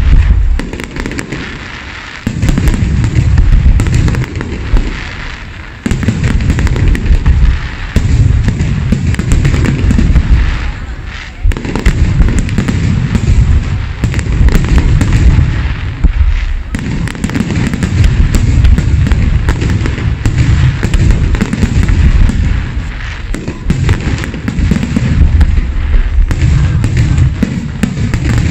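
Fireworks display: aerial shells bursting in rapid succession, deep booms overlapping one another with crackling throughout.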